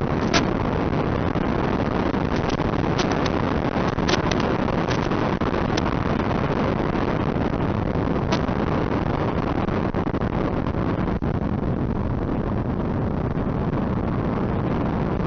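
Steady rushing wind and motor noise from an RC P-38 model plane in flight, picked up on board, with a few short sharp clicks.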